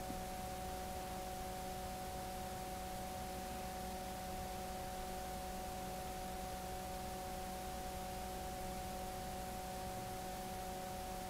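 Steady electrical hum of several constant tones over faint hiss: the recording's background noise, with nothing else sounding.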